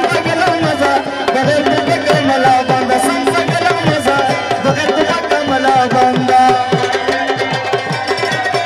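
Live Pashto folk music. A tabla plays a quick, steady rhythm, its bass drum strokes bending downward in pitch, under a held, wavering melody line.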